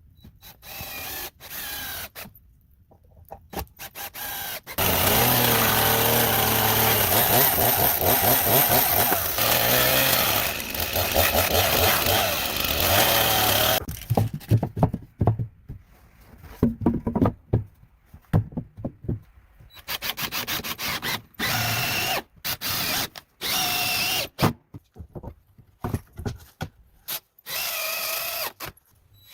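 Power tools working wood. There is one long steady run of tool noise, then many short bursts, several with a steady whine like a drill, each starting and stopping abruptly.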